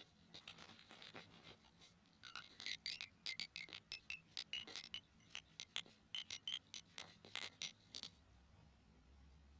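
Earphones handled to make small sounds: soft scratching at first, then, from about two seconds in, an irregular run of quick little clicks and taps, about three or four a second, that stops near the end.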